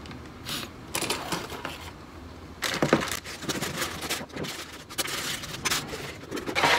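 Clear plastic packaging bag crinkling and rustling as it is handled, with light taps and scrapes on a cardboard box, in short irregular rustles.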